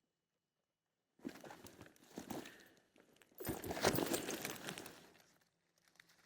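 Dry leaf litter rustling and crinkling, in two stretches: a lighter one starting about a second in and a louder one in the middle, with a few faint ticks near the end.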